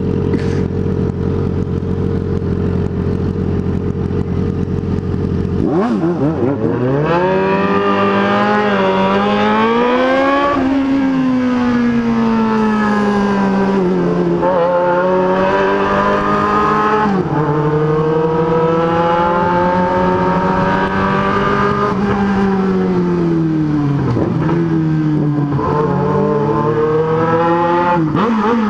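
Inline-four motorcycle engine holding a steady note, then about six seconds in pulling away and being revved through the gears, its pitch climbing and dropping back again and again.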